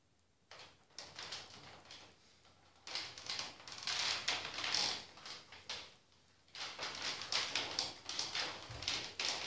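Wooden folding chair creaking and clicking under a man's shifting weight as he sits up and climbs over it, in two bouts of rapid clicks and scraping. There is a low thump near the end as a foot comes down on the floor.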